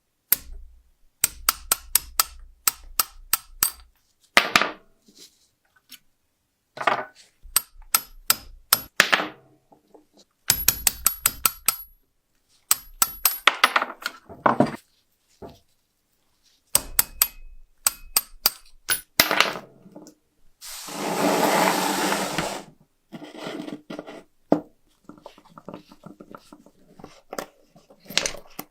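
Small brass and metal lighter parts clicking and clinking as they are handled and set down on a hard surface, in repeated clusters of sharp taps, some with a thin metallic ring. About two-thirds of the way through comes a two-second hiss or scrub.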